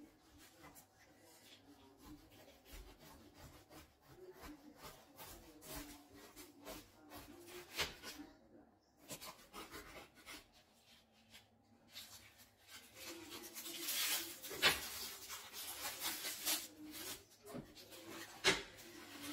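A knife sawing through the crisp, flaky crust of a baked phyllo pie, which crackles and rasps with sharp clicks of breaking pastry. The crackling grows louder for a few seconds past the middle.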